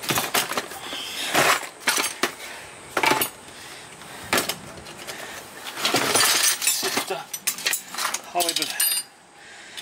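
Loose metal hand tools and parts clinking and clattering as they are rummaged through and shifted about, a run of separate knocks with a denser stretch of clatter a little past the middle.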